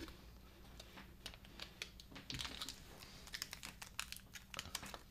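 Faint crinkling and small clicks of a drink-powder stick packet being tapped empty into a plastic shaker bottle and then handled.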